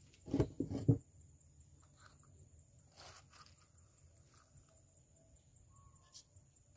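A quick cluster of wooden knocks as a compartmented wooden spice box is set down on a wooden table, followed by a few soft handling sounds and a light click near the end as a spoon goes into the mortar.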